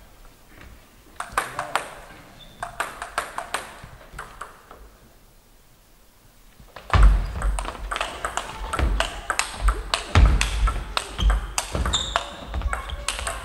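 Table tennis ball clicking as it is bounced a few times before a serve. Then a fast rally of sharp ball-on-paddle and ball-on-table clicks from about halfway through, with a few heavy thumps among the hits.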